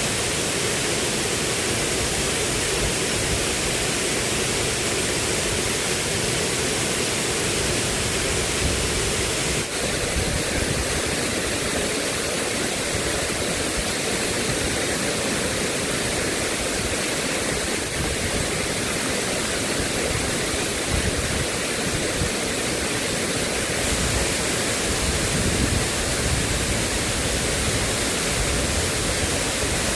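Steady, loud rushing of water, an even noise with no pauses.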